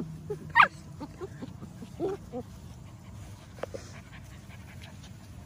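Bernedoodle puppies play-fighting: one puppy gives a sharp yip about half a second in, then a short whine about two seconds in, with only faint scuffling after.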